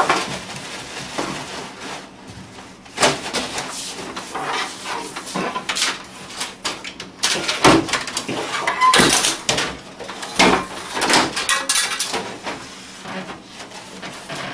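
Paper towel rustling and crinkling as it is pushed and pulled through an opened printer, mixed with irregular plastic knocks, scrapes and rattles as the printer is handled and tipped up on its end.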